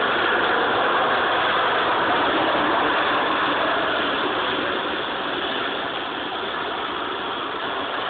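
Harrier jump jet's Pegasus turbofan running hard as the jet hovers, a steady, loud jet noise that eases slightly in the second half, heard through a phone's microphone.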